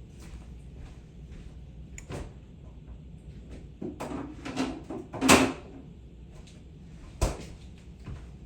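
A handful of knocks and clunks of kitchen work, like containers, a lid or a cupboard being handled. The loudest clunk comes a little past halfway, and a sharp knock follows near the end.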